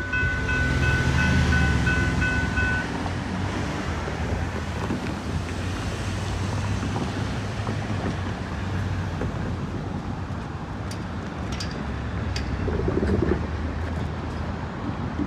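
Railroad crossing bell ringing rapidly, then cutting off about three seconds in as the gates go up. After that comes the steady low rumble of the freight train rolling away.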